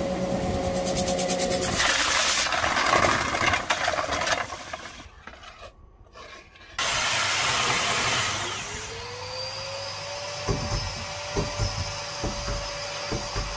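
DUSS DIA 200 HWS diamond core drill running and cutting dry through concrete: a steady motor whine over grinding noise that fades out after a few seconds. After a short lull, the motor spins up with a rising whine and runs steadily, with a few knocks near the end.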